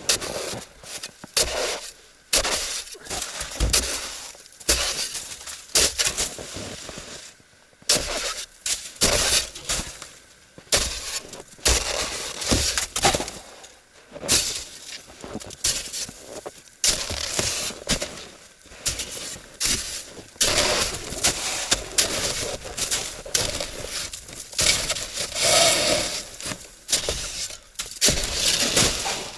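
Shovel chopping and scraping at hard, frozen snow, breaking it off in crunching chunks: a long run of irregular strokes, one or two a second.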